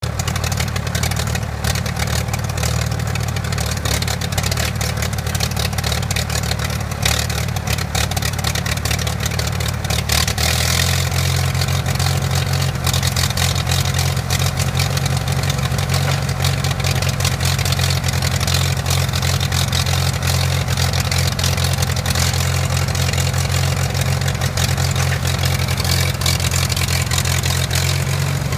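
1947 International Harvester McCormick Super W-6 tractor's gasoline four-cylinder engine running steadily while its hydraulic front-end loader is worked. About ten seconds in, the engine's note changes and settles into a smoother, more even tone.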